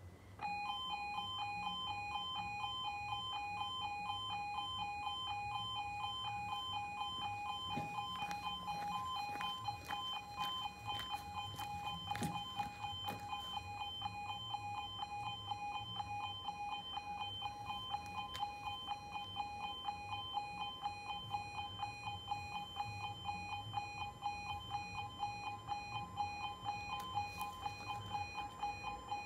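UK automatic half-barrier level crossing's warning alarm starts about half a second in and keeps sounding: a rapid two-tone warble as the crossing closes for an approaching train. A few clicks and knocks sound partway through while the barriers come down.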